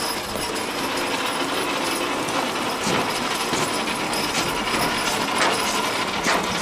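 A team of draft horses drags a weighted pulling sled along the dirt track. It makes a steady, loud rumbling and scraping, with clanking and rattling from the hitch, chains and harness.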